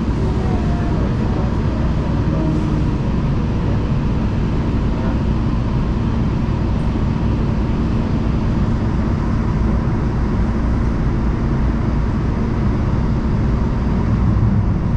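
Inside a moving LA Metro A Line light rail car: the steady rumble of the train running along the track, with a thin steady whine above it.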